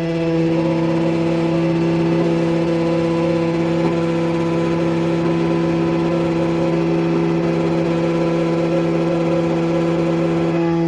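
Computerized key-cutting machine milling the second side of an HU66 key blade: a steady motor whine that swells in the first half-second, then holds level.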